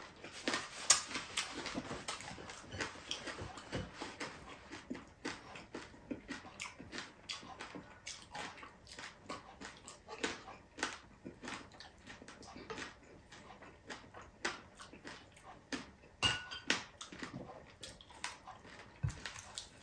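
Close-up eating sounds: wet chewing and lip smacking as food is eaten by hand, with irregular clicks and a few clinks of a serving spoon against a pot and plate, one ringing briefly near the end.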